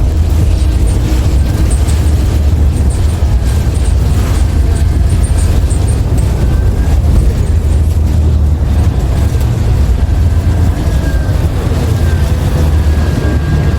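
Cabin noise of a New Flyer XDE60 hybrid articulated bus under way: a loud, steady low rumble from the engine and hybrid drive, with faint whines sliding up and down in pitch. The motor and transmission sound weird and off to the rider compared with other hybrid artics with Allison transmissions.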